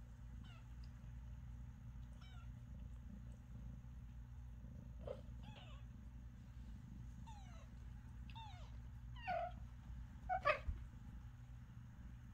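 A small kitten mewing, about eight short, high-pitched calls that fall in pitch, coming closer together and louder in the second half. The loudest call comes about ten seconds in.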